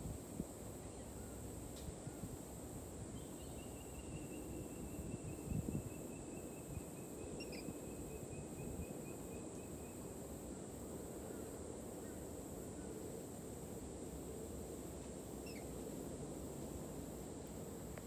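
Outdoor ambience with a steady low background noise, over which a high, evenly pulsed trill starts a few seconds in and runs for about six seconds, slowly falling in pitch. A couple of short high chirps come later, and there are a few soft low bumps about five seconds in.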